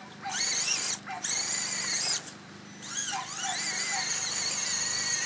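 Electric motor and gear drivetrain of an Axial SCX10 RC crawler whining in three throttle bursts as it drives through a mud pit, the pitch rising as each burst comes on; the last and longest burst starts about three seconds in.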